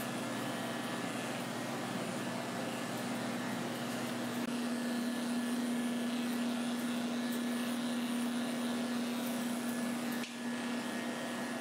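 Electric dog grooming clipper running steadily as it shaves a schnauzer puppy's coat, a constant motor hum with a brief dip about ten seconds in.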